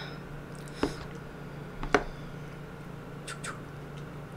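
A metal spoon clicks sharply against a bowl twice, about one and two seconds in, as sauce is spooned into a halved boiled egg, with a few fainter small clicks near the end. A steady low hum runs underneath.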